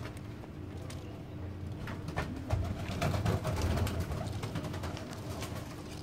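Domestic pigeons cooing, a low rolling sound that swells about two and a half seconds in.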